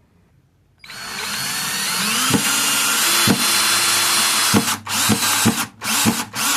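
Cordless power drill driving a long screw into wood: about a second in the motor starts and runs steadily for nearly four seconds, then gives a series of short trigger bursts as the screw is run home.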